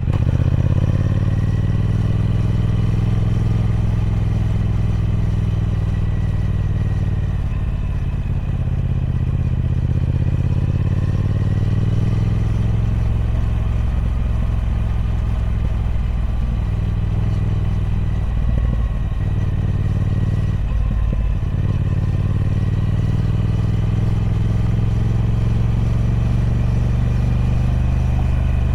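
Triumph Speed Twin 1200's parallel-twin engine running through its stock exhaust: a deep, steady drone whose pitch slowly rises and falls, with two brief dips about two-thirds of the way through.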